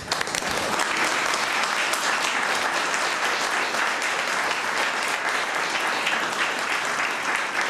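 Audience applauding: a dense round of hand-clapping from a roomful of people.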